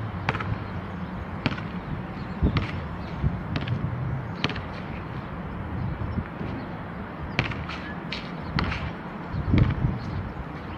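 Sharp short knocks at irregular intervals, several bunched together near the end, over a steady low rumble.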